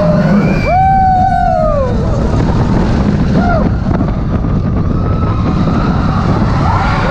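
Expedition Everest roller coaster train rumbling along its track at speed, with wind buffeting the on-ride microphone as it runs out of the dark and down a drop. Riders scream over it: one long scream about a second in and shorter cries near the middle and end.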